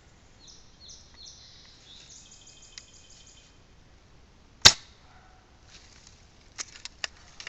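Airsoft sniper rifle firing a single shot: one sharp snap about halfway through. Birds chirp faintly before it, and a few light clicks follow near the end.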